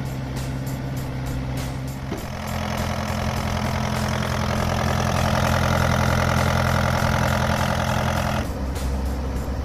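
Kubota U48-4 mini excavator's diesel engine idling steadily. About two seconds in it turns louder and more clattery, heard close to the open engine compartment, and eases back shortly before the end.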